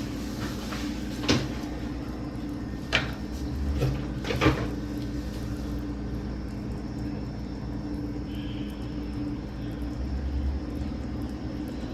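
Three sharp knocks or clatters, a second and a half apart, over a steady low hum; the last knock is the loudest.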